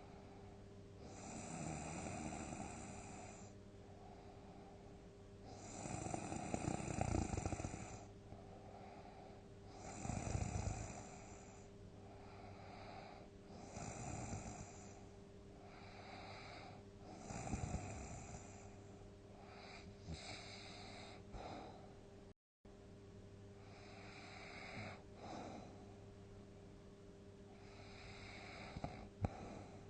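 A sleeping person snoring, one snore every three to four seconds, the loudest about seven seconds in, over a steady low hum. The sound drops out for an instant about two-thirds of the way through.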